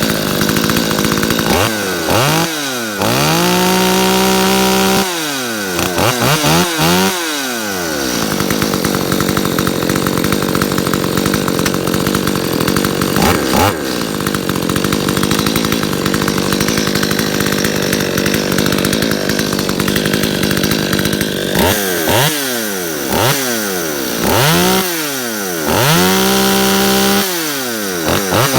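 Stihl 025 two-stroke chainsaw engine revved up and down repeatedly and held at full throttle for a couple of seconds. It then settles to a steady idle for about thirteen seconds with one brief blip, before being revved up and down again near the end.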